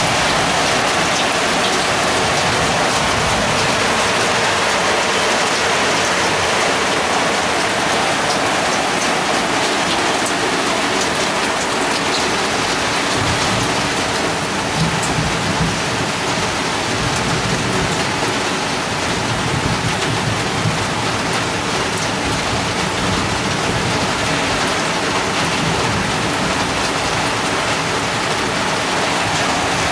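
Steady heavy rain falling, with many small drop ticks close by from water dripping off the roof eave. A low rumble comes in about halfway through and fades away.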